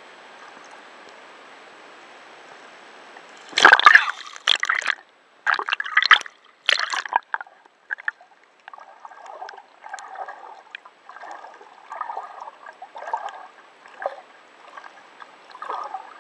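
Heavy rainstorm with wind: a steady hiss of rain, then a run of loud gusts buffeting about four to seven seconds in, followed by uneven water sounds coming one or two a second.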